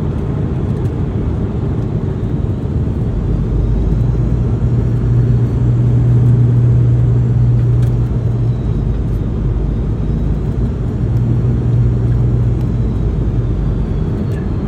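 Cabin noise inside a Boeing 717: a loud, steady low rumble from the aircraft and its rear-mounted BR715 turbofans. A low hum swells twice and faint high engine whine slowly rises and falls.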